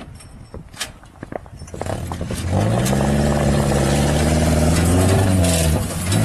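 Car engine revving up and running at steady high revs, dropping briefly near the end before picking up again. Scattered knocks and clatter come before it in the first two seconds.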